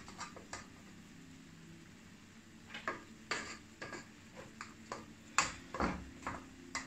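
Scattered clinks and knocks of a kitchen utensil against cookware as cooked white rice is spooned into a frying pan of shrimp, about eight light strikes, over a faint steady hum.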